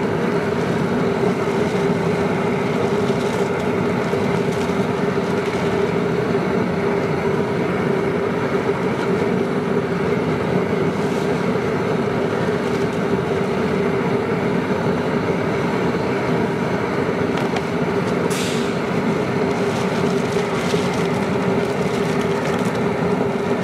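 Outdoor propane burner under a seafood boil pot, running steadily at full heat to keep the pot at a rolling boil, with one brief hiss about eighteen seconds in.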